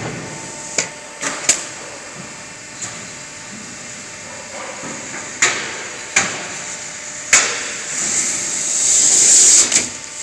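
Roll-forming machine running as a corrugated steel roofing sheet feeds through its rollers. Irregular sharp metallic knocks and clanks sound over a steady hiss, and the hiss swells near the end.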